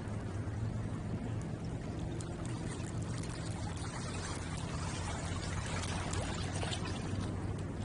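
Water splashing and lapping at the shore, with irregular small splashes, more of them a few seconds in. A steady low hum runs underneath.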